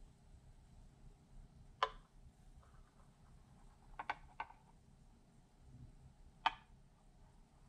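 Quiet pour of steamed milk into a ceramic latte cup, broken by about five sharp clinks, likely the steel milk pitcher's spout touching the cup rim: one about two seconds in, a quick cluster around four seconds, and one more later on.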